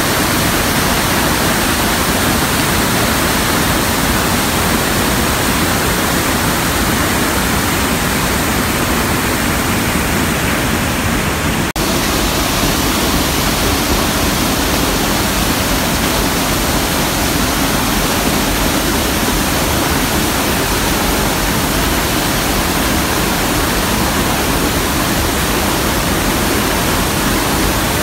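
Loud, steady rush of the Iguaçu Falls' water plunging over the cliff, with one momentary break about twelve seconds in.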